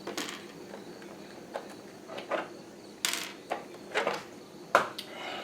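An RC truck's body shell being taken off by hand: a scatter of small clicks and knocks, with a short scrape about three seconds in.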